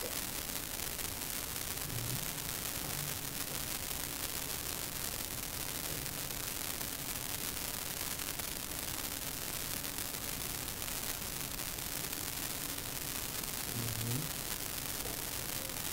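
Steady hiss of background noise with a faint hum under it, and a few brief faint low sounds around two, three and fourteen seconds in.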